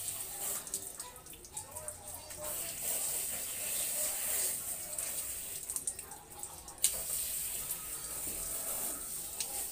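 Water from a garden hose pouring over a dog and splashing onto a tiled floor, a steady hiss, with a sharp click about seven seconds in.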